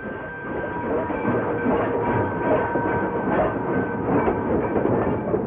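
Pennsylvania Railroad K4s Pacific steam locomotive running past with its train, a steady, dense mix of engine and wheel noise on the rails.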